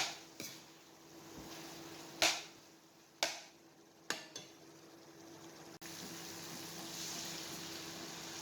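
Cooking in a pot: a utensil knocks against the pot about six times in the first half, then a steady hiss of the food cooking sets in after a sudden cut.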